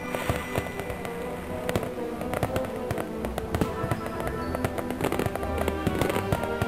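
Fireworks bursting, with many sharp bangs and crackles, over music with sustained notes.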